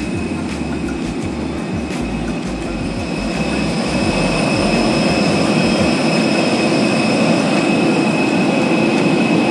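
Jet airliner noise: a steady loud rush with a high whine, growing louder about four seconds in, with wind buffeting the microphone in the first few seconds.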